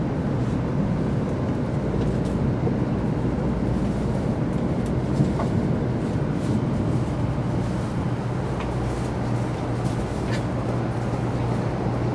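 Steady rumble and hum of a 300 series Shinkansen running, heard inside the passenger cabin, with a few faint ticks.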